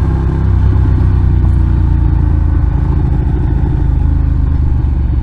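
Motorcycle engine running steadily while riding along at road speed, with a slight change in engine pitch about half a second in.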